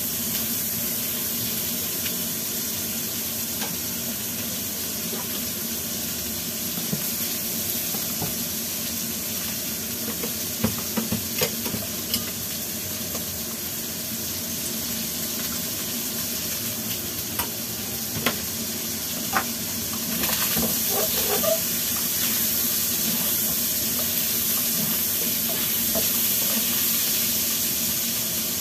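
Meat sizzling as it is stir-fried in a nonstick frying pan over a gas flame, with a steady hiss and a spatula clicking against the pan a few times. The sizzling grows louder about two-thirds of the way through.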